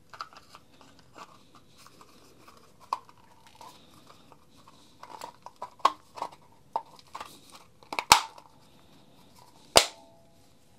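Plastic automatic-feed trimmer-line head being handled and snapped shut: scattered small clicks and knocks, with two sharp snaps about eight and ten seconds in.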